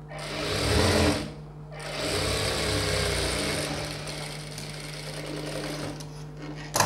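Industrial lockstitch sewing machine stitching a half-inch seam in two runs: a short burst of about a second, then a longer run that slows and fades out. Near the end comes one sharp snip as scissors cut the thread.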